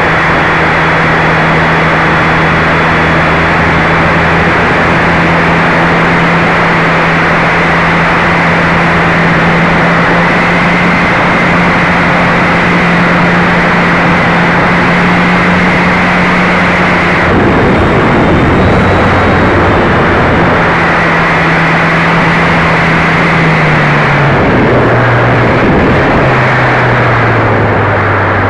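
Radio-controlled model airplane's motor and propeller running with a steady hum and a thin high whine, under heavy wind rush over the wing-mounted camera's microphone. About two-thirds of the way through the motor note drops out for a few seconds, leaving only the wind, then comes back. Near the end it steps down lower in pitch as the throttle is eased off.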